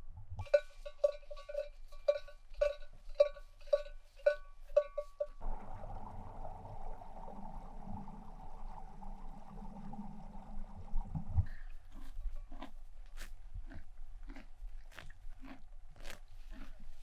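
A bell on grazing livestock rings in uneven clanks, about two a second. About five seconds in it gives way to a steady rushing noise, and near the halfway point that cuts to regular crisp crunches with soft thuds, about two a second.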